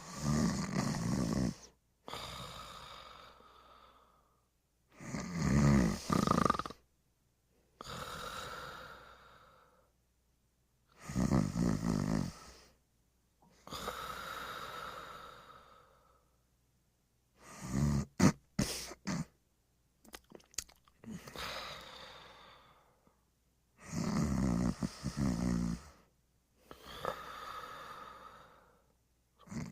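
Snoring in slow, even cycles: five loud snores about six seconds apart, each followed by a quieter breath that fades away, with a few short snorts near the middle.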